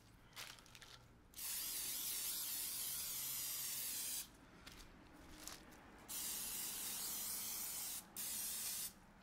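Aerosol olive oil cooking spray hissing in three bursts: a long one of about three seconds, then two shorter ones close together near the end, as raw steaks are coated with oil as a binder.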